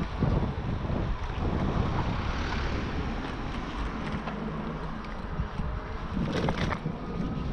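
Wind buffeting the microphone of a camera on a moving bicycle: an uneven, rumbling rush.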